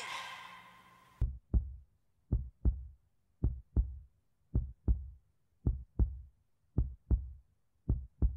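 Heartbeat sound effect: seven double thumps, lub-dub, about one a second, after a ringing tone fades out in the first second.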